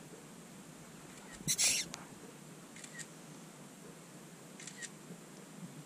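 Quiet, hushed whispering with a few faint sibilant sounds, and one short, loud hiss about a second and a half in.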